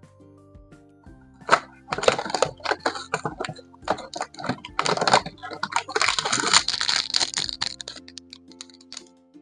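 Plastic toy packaging crinkling and crackling in rapid clicks as it is handled and opened, over soft background music; it starts about a second and a half in and dies away near the end.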